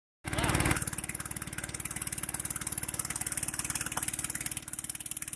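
An engine idling steadily with a rapid, even pulse. A brief wavering tone sounds right at the start.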